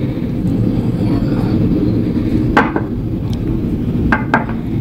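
A steady low rumble, with a few short sharp clicks: one about halfway through and two close together near the end.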